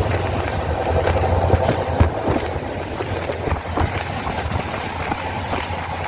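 Indian express train running at speed, heard from an open coach doorway: a steady low rumble of wheels on rail with scattered knocks, and wind rushing past the microphone.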